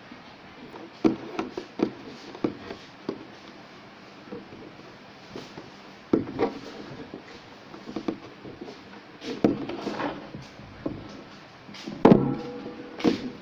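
Hands and white rope knocking and tapping on a tabletop and a pole while a knot is tied: irregular taps and thumps with rope handling between them, the loudest thump near the end.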